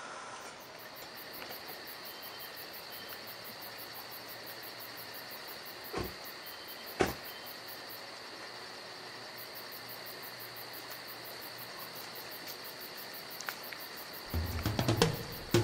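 Steady night chorus of crickets, a constant high trill. Two brief knocks about a second apart come midway, and music with a low beat comes in near the end.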